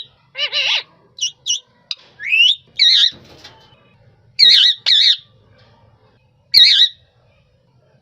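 Indian ringneck parakeet calling in short harsh squawks, mixed with brief sharp notes and a rising whistled call. There are about seven calls with gaps between them: a pair about four and a half seconds in and one more near seven seconds.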